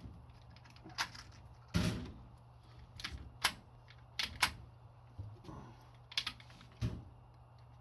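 Ruger SR-22 semi-automatic .22 rifle's action being worked by hand to clear a jam: a string of sharp metallic clicks and clacks, irregularly spaced.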